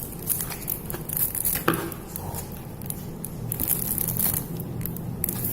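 Crinkling and rustling of packaging, with scattered small clicks and a sharper knock about two seconds in, as a vape box mod is handled and taken out of its box.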